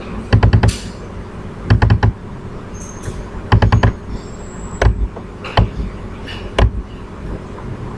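Computer mouse button double-clicked in quick bursts of sharp clicks, three bursts about a second and a half apart, followed by a few single clicks.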